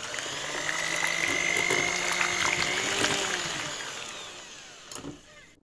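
Electric hand mixer running, its twin beaters churning thick cake batter with grated carrot in it, with a steady motor whine. It grows fainter after about three seconds, then a click and it stops just before the end.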